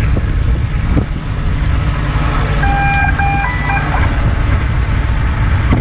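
Steady low rumble of a fishing boat's engine and wind on the microphone, with a short run of electronic-sounding beeps about three seconds in.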